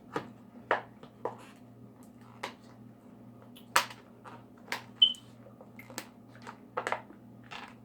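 Plastic produce packaging being pried open, giving a string of irregular sharp clicks and crackles, two of them louder about four and five seconds in.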